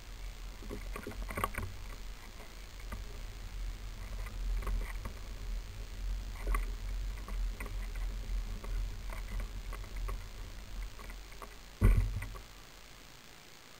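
Kayak being pulled along asphalt: a steady low rolling rumble with the rattle and clicking of gear on board. About twelve seconds in a loud thump, after which the rumble stops.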